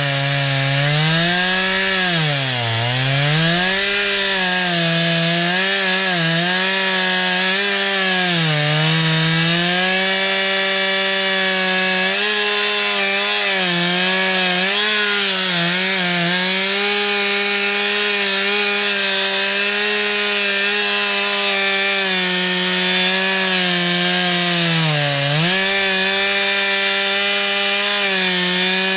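Stihl two-stroke chainsaw running at full throttle while cutting through a log. Its engine pitch sags under load a couple of times, most deeply about two to three seconds in and again near the end, then picks back up.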